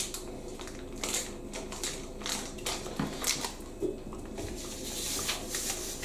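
Crinkling and rustling of a washing machine cleaner's plastic packaging being handled, with scattered small clicks and taps, over a faint steady hum.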